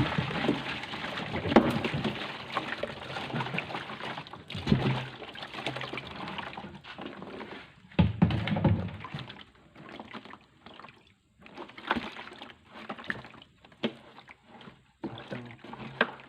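Water sloshing and splashing in irregular bursts, with knocks and clicks between them; loudest at the start and again about eight seconds in.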